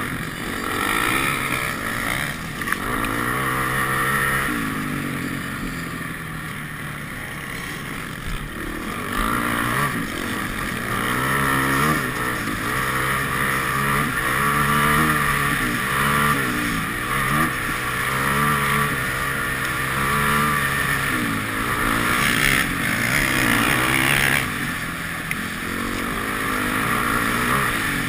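Off-road dirt bike engine racing at high revs, its pitch climbing and dropping again and again as the rider works the throttle and shifts gears.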